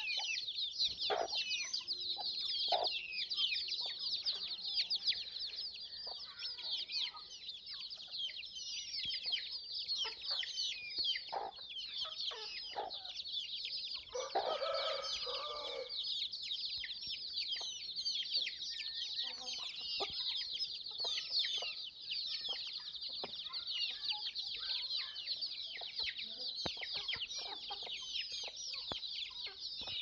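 A brood of country-chicken chicks peeping continuously in high, rapid chirps, with a hen giving low clucks now and then. A longer, lower call from an adult chicken comes about halfway through.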